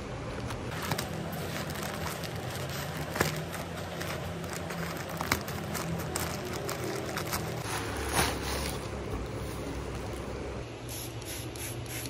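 Plastic mailer bag rustling and crinkling as it is handled and opened by hand, with a few sharp clicks about 3, 5 and 8 seconds in.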